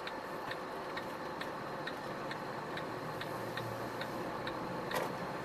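Turn-signal indicator ticking in an Iveco Stralis truck cab, evenly at about two ticks a second while the truck turns, over the steady running noise of the cab. One sharper click stands out near the end.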